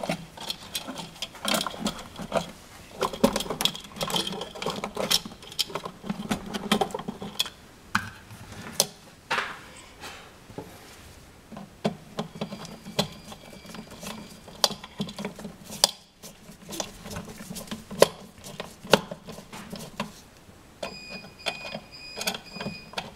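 Irregular small clicks, knocks and scrapes of a wall light switch being pushed into a plastic electrical box and its mounting screws being turned with a hand screwdriver, over a low steady hum.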